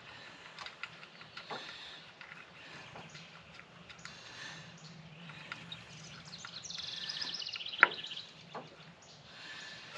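Light clicks and taps of bolts and hand tools being handled while the air compressor is bolted on, over a faint low hum. About seven seconds in comes a quick run of fine ticks that ends in one sharp click.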